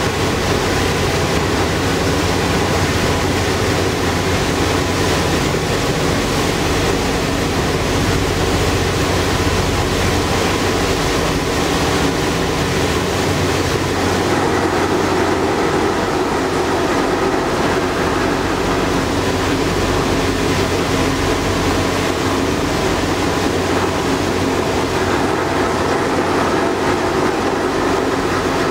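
Steady drone of a passenger ferry under way: the low hum of its engine with the rush of water along the hull, unbroken throughout.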